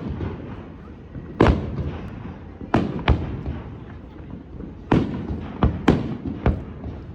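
Aerial fireworks shells bursting, a string of about seven sharp booms at uneven intervals, each trailing off in a rolling echo, with several coming close together in the second half.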